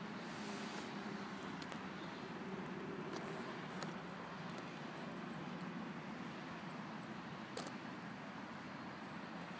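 Steady outdoor background noise, a low hum with a few faint clicks scattered through it.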